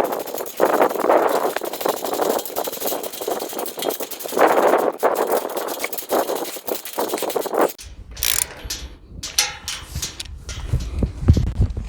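Ratchet wrench with a 15 mm socket tightening gate-latch bolts, clicking in repeated back-and-forth strokes. About eight seconds in the sound changes abruptly to a low rumble with a few scattered knocks.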